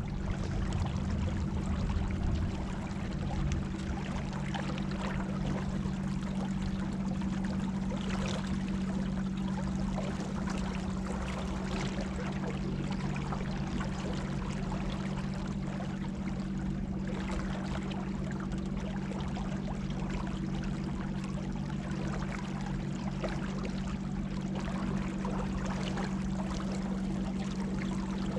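Electric trolling motors humming steadily as a small rowboat moves under power, with water rushing and splashing along the hull.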